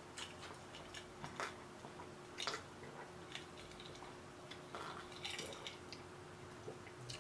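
Faint sipping and swallowing from a glass of drink, with a handful of small, soft clicks scattered through.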